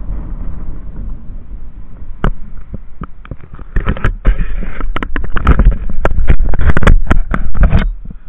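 Wind buffeting an action camera's microphone, with a rush of knocks and crackles that grows loud about four seconds in and cuts off shortly before the end.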